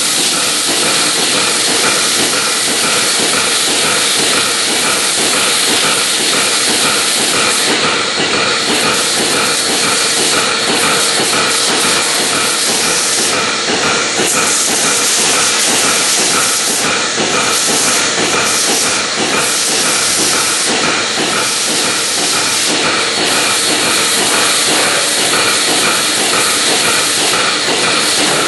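Water hose spraying with a steady, loud hiss that swells and dips as the jet moves, over the regular pulsing of a running milking machine.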